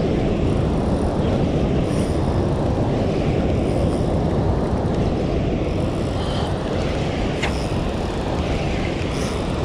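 Steady, even rush of water pouring through a dam's open spillway gates into the tailwater.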